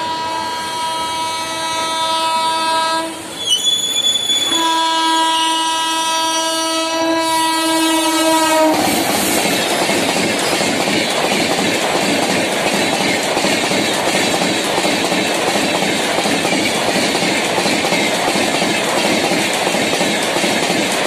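WAP7 electric locomotive sounding its horn in two long blasts as it approaches at high speed. The second blast bends slightly down in pitch as the locomotive passes. About nine seconds in, it gives way to the loud steady rush and clatter of the express coaches running past.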